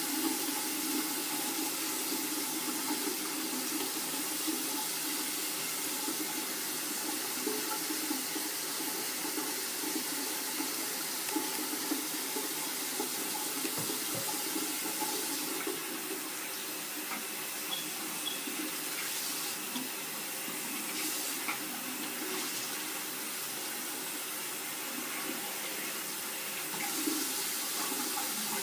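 Tap water running steadily into a sink as hair bundles are wet and rinsed under it. The splash grows brighter and hissier for about ten seconds from the middle on.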